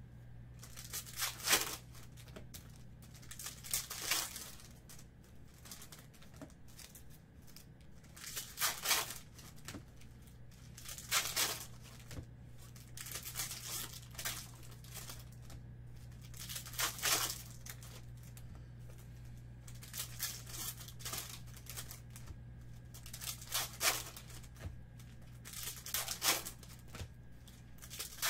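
Topps Chrome foil card packs being torn open and their wrappers crinkled, one pack after another, in short rips every two to three seconds.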